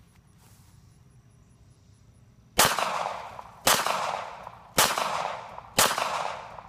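Four pistol shots from a Cobra FS380 .380 ACP handgun, fired about a second apart and beginning a little over two seconds in, each followed by a long fading echo.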